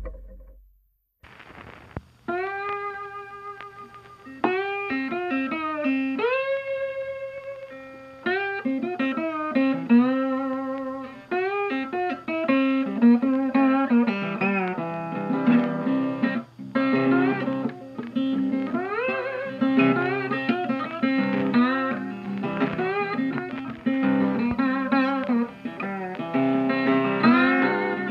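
Background music led by a guitar, with notes that bend and slide in pitch, coming in about two seconds in after a brief quiet moment.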